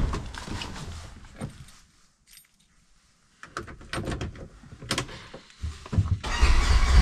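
Clicks, clunks and a jingle of keys as someone settles into a side-by-side UTV and turns the key. About six seconds in the engine starts and settles into a steady low idle.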